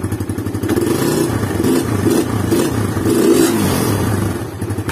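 Suzuki Satria FU's single-cylinder four-stroke engine running at idle and revved up and down a few times in the middle, its camshaft timing freshly set right.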